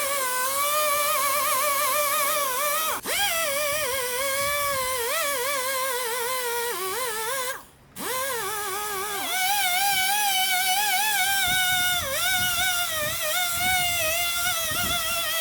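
Background music: a single wavering melodic line, breaking off briefly about halfway through.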